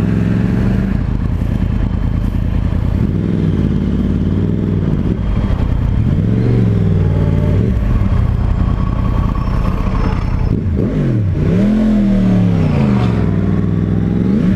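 Sportbike engine heard from the rider's position, its pitch rising and falling several times as the bike accelerates and rolls off the throttle through traffic, ending on a sharp rise.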